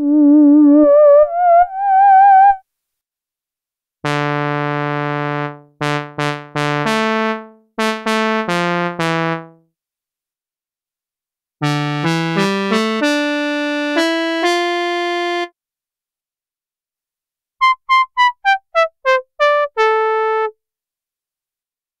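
Roland Jupiter-4 software synthesizer presets played on a keyboard, in separate short phrases with silences between. First a lead line with vibrato climbs in pitch. About four seconds in come chords and notes that fade quickly. Near the middle a run of held notes follows, and near the end a quick descending run of short staccato notes.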